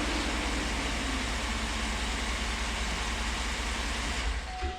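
Chevy Tahoe V8 engine idling steadily just after starting, with a freshly replaced negative battery ground cable. The sound cuts off sharply near the end.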